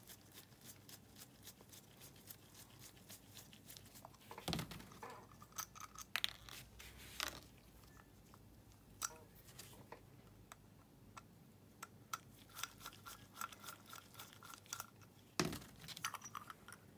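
Screwdriver backing out the small screws of a pocket bike carburetor's float bowl, then fingers working the screws and bowl loose: faint scattered metal clicks and scrapes, with a few louder clicks.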